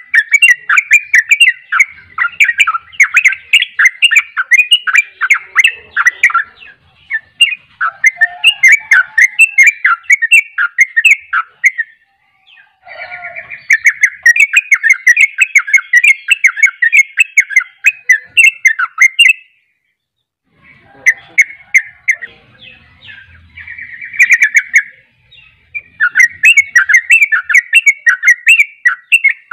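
Yellow-vented bulbul (trucuk) singing a loud, rapid run-on chattering song (the 'ropel' style) in long bursts of quick notes, breaking off briefly about twelve seconds in and again around twenty seconds in.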